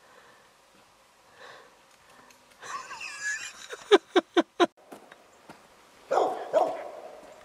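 Cur dog barking at a tree: a quick run of four sharp barks about four seconds in, then two louder barks a couple of seconds later. This is a treeing dog's bark, the sign that it has a squirrel up the tree.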